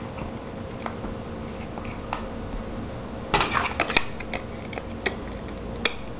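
Small sharp clicks and snaps of a rugged multi-piece phone case being handled and fitted onto an iPhone 6 Plus by hand, with a quick flurry of clicks about three seconds in. A faint steady hum runs underneath.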